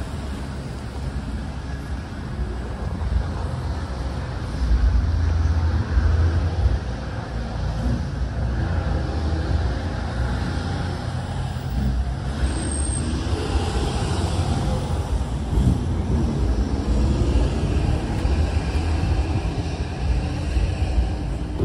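Road traffic noise: a low, uneven rumble of passing vehicles.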